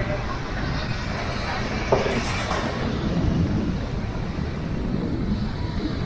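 Steady low rumble of wind on the microphone mixed with the wash of small waves breaking on a sandy shore, with one sharp knock about two seconds in.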